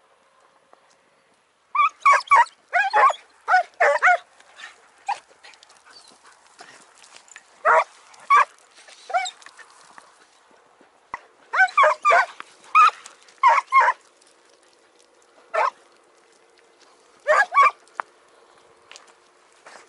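A pack of hare hounds barking and baying in scattered short bursts, several dogs giving tongue, a sign that they are working a hare's scent line through the scrub.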